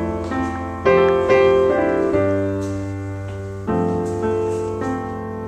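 Background piano music: chords struck every second or so, each left ringing and fading.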